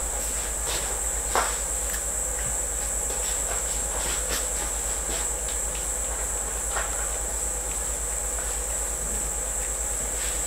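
A cat chewing crunchy freeze-dried green-lipped mussel treats: scattered short, soft crunches. Under them run a steady high-pitched whine and a low buzz.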